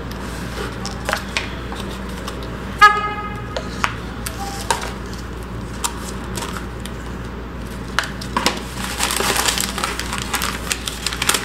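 Cardboard takeout box and its paper liner being handled: light clicks and knocks, then paper crinkling from about eight seconds in. A brief pitched tone sounds once about three seconds in.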